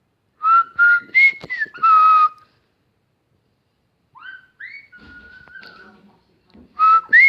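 Whistling for a parrot to copy: a short loud phrase of four notes, stepping up and back down. Fainter rising whistles and a held note come in the middle, and the loud phrase starts again near the end.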